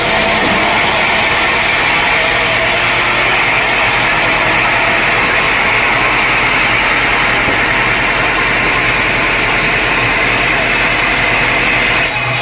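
Sawmill saw cutting through a teak log: a loud, steady, hissing whine over the low hum of the mill's motor. The cutting sound stops suddenly near the end, and the motor hum runs on.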